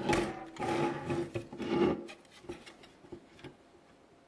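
Hard drive sliding into a computer case's drive cage, scraping against the bay for about two seconds, followed by a few light clicks as it settles into place.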